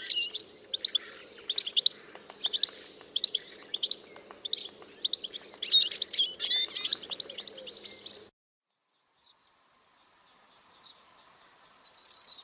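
Songbirds chirping and whistling, several calls overlapping in quick, high-pitched phrases. The sound cuts off about eight seconds in, and near the end a single bird gives a rapid run of high chirps.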